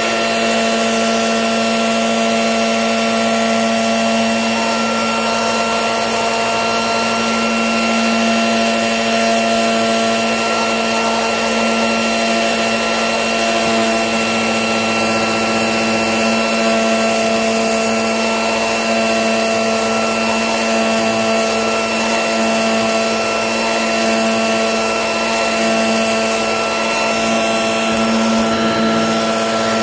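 A machine running steadily: an even rushing noise with a constant whine that does not change.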